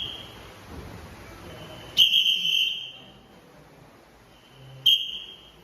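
A whistle blown in sharp blasts on one high steady pitch: a longer blast about two seconds in and a short one near the end, signalling the counted movements of a military drill.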